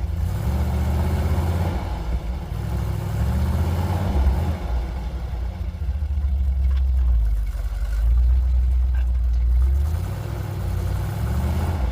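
Jeep engine working under load in snow, a low rumble whose pitch rises and falls a few times as it is revved.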